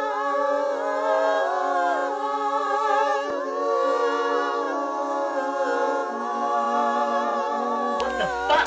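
Background music: layered, wordless sung or hummed vocal tones held and slowly gliding in pitch, with an electronic beat with heavy bass starting just before the end.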